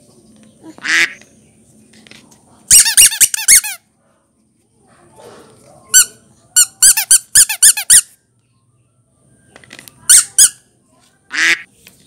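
Yellow rubber duck squeeze toys squeaking as they are squeezed: single squeaks and quick runs of several squeaks in a row, with short pauses between runs.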